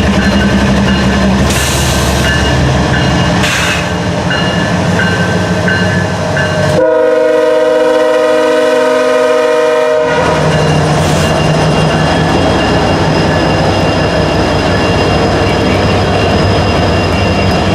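CSX freight train passing at close range, its diesel locomotives (an ES44AH and an SD70AC) running with the rumble of wheels on the rails. About seven seconds in, a locomotive horn sounds one steady blast of about three seconds, then the train noise carries on.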